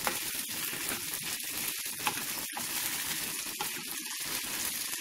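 Hot oil sizzling in a frying pan as boiled rice pasta is stirred through onion-garlic masala with a wooden spatula; a steady hiss.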